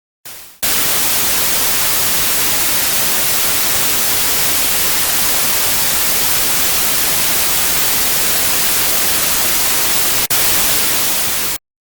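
Loud, steady static hiss like white noise, with a brief dropout about ten seconds in, cutting off suddenly near the end.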